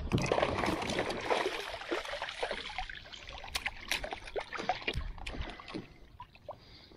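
Water splashing and sloshing beside a kayak, loud at first and dying down over a few seconds, with scattered knocks and clicks.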